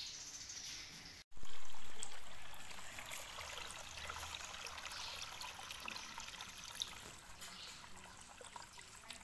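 Water from a garden hose splashing into a plastic basin as it fills. It starts abruptly about a second in, loudest at first, then settles to a steady splashing.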